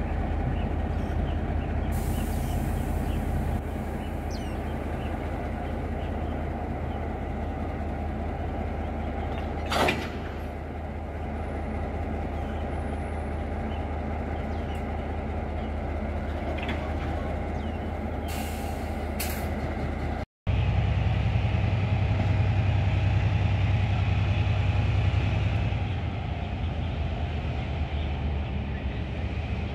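Diesel shunting locomotive idling with a steady low engine drone, with short spells of air hiss, typical of brake air being let out during coupling, and a single sharp clank about ten seconds in. About two thirds of the way through, the engine drone becomes louder.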